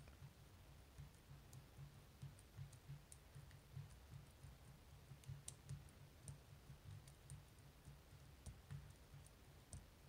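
Faint, irregular clicking of a steel hook pick tapping and bouncing off the barrel pins inside an Assa Twin 5700 (Baltic) lock cylinder held under counterclockwise tension, walking the pins up one by one.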